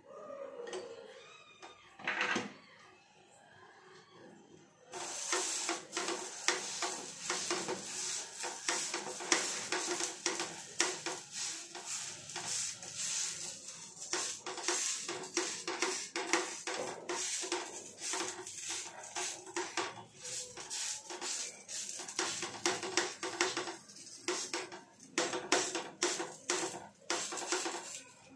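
Wheat adai dough being patted flat by hand on a hot tawa: rapid soft pats over a sizzle, starting about five seconds in.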